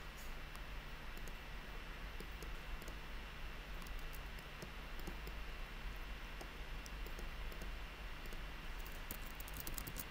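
Faint computer mouse clicks, scattered, then a quick run of keyboard keystrokes near the end, over a steady low hum.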